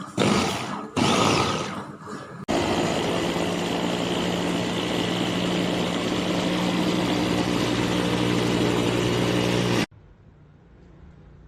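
Electric food chopper's motor running: two short pulses, then a steady run of about seven seconds that cuts off suddenly.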